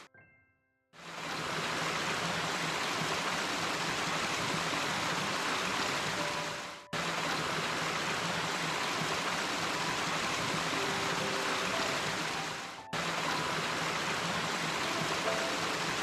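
Steady rushing noise like running water, broken off abruptly twice, about 7 and 13 seconds in, with faint short tones now and then above it.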